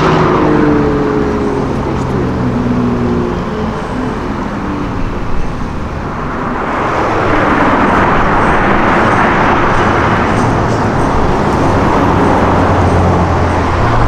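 A BMW coupe's engine pulling away, its pitch stepping down as it fades over the first few seconds. About halfway through, an Audi R8 Spyder's V10 accelerates hard with a loud, rasping exhaust.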